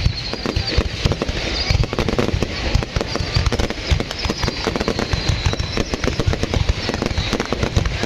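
Aerial fireworks display: a rapid, unbroken barrage of bangs and crackling from shells and comets bursting overhead.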